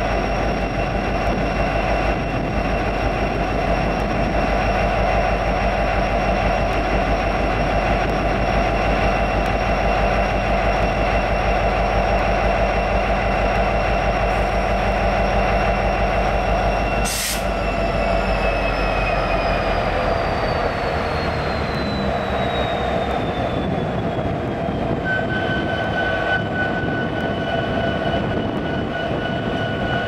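EMD diesel locomotive running steadily while standing. About 17 seconds in there is a sharp click, then a high whine falls slowly in pitch and the low drone drops away as the engine winds down, and a steady high tone sets in near the end.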